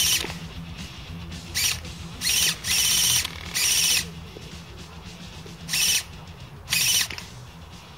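Airsoft electric guns firing short full-auto bursts: a rapid buzzing rattle, about seven bursts of a fraction of a second each, spaced irregularly.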